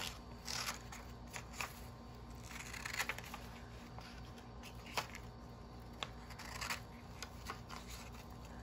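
Small scissors snipping through a sheet of bond paper in a series of irregular cuts, with the paper rustling as it is handled and a couple of sharper clicks of the blades.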